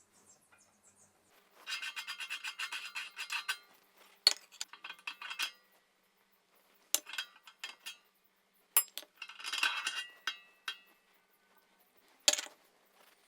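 Metal kitchen utensils clinking and scraping against a bowl and dishes: a quick run of ringing clicks, then a few separate knocks and clinks, and a second short run of clinking.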